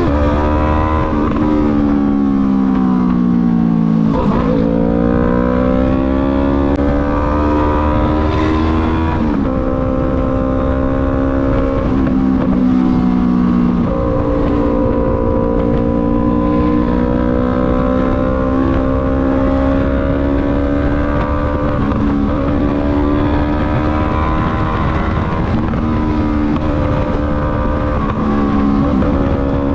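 Yamaha MT-03 motorcycle engine on the move, its revs falling over the first few seconds, then rising and stepping down through a couple of gear changes before settling into a steady cruise, over a constant rush of wind noise.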